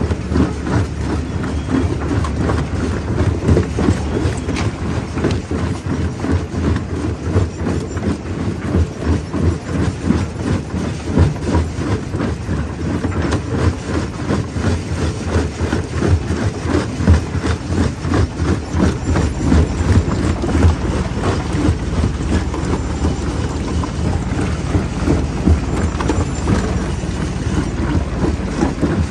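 Jaw crusher crushing rock: a continuous rapid clatter of stones cracking and knocking in the jaws over a low rumble.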